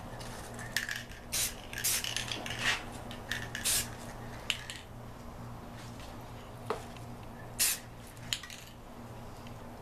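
Aerosol spray paint from a rattle can let off in short bursts: a run of brief hisses in the first five seconds, then one more near the end, over a faint steady hum.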